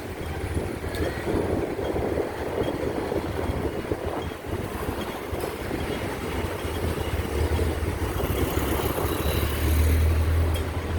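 Street traffic noise: a steady rumble of passing vehicle engines that grows louder about eight and ten seconds in.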